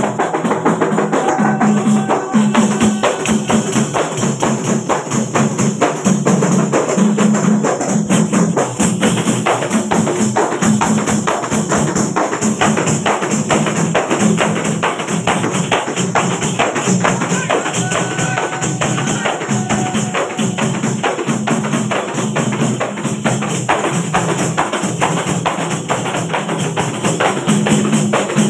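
Several large hand-held frame drums (dafs) beaten together in a fast, steady, dense rhythm.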